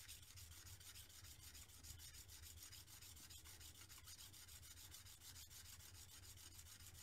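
Faint, steady scraping of a steel plane blade rubbed flat back and forth on a wet sharpening stone, polishing the flattened back of the blade.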